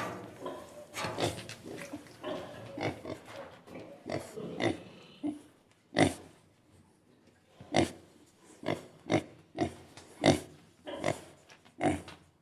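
Pig grunting in a run of short, irregular grunts, with the loudest about halfway through and again near the end.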